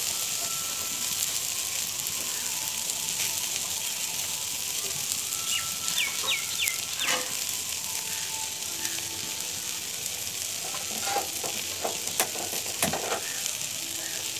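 Shredded cabbage and onion sizzling steadily in a hot steel wok, a constant high hiss. A few light clicks and taps come about two-thirds of the way through.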